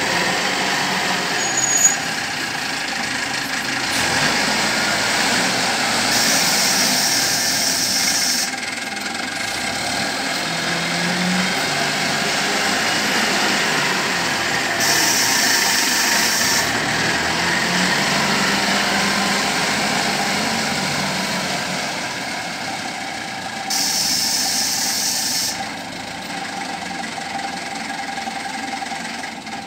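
Diesel engine of a SYZG wheel loader running under load as the machine drives and works its bucket. A brief knock comes about two seconds in, and a high hiss breaks in three times, each lasting a couple of seconds.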